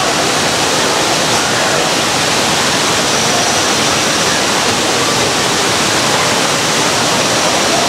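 Waterfall: a steady, even rush of falling water that does not change.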